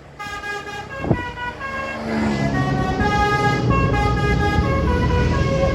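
A bus's telolet multi-tone air horn playing a tune of short held notes that step up and down in pitch. It gets louder about two seconds in, over a low drone.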